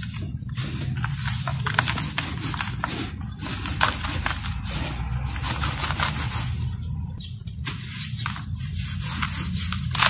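Hands crumbling and stirring dry, dusty powder and soft chunks in a plastic tub: a continuous dry rustling and sifting with many small crackles. A steady low hum runs underneath.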